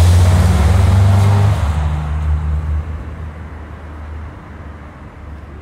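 Classic Dodge car's engine running with a deep low rumble, loud for the first second and a half, then falling away gradually over the next few seconds.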